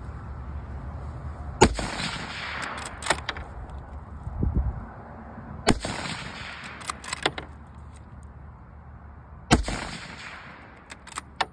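Three rifle shots from a Savage Axis .308 bolt-action firing M80 7.62x51 ball, about four seconds apart. After each shot comes a short run of metallic clicks as the bolt is worked and the empty case ejects; with this ammunition the action cycles freely.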